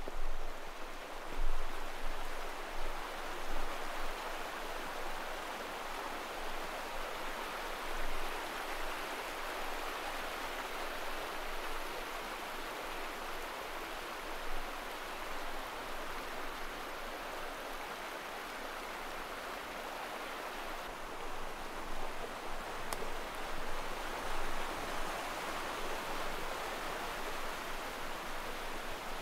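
Fast, high-running stream rushing steadily, an even wash of water noise, with a few brief thumps in the first few seconds.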